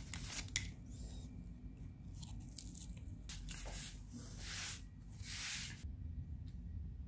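Paper bakery bag crinkling and crackling in the hands, then two swishes of paper rubbed across a wooden tabletop to wipe up spilled powdered sugar, about four and a half and five and a half seconds in.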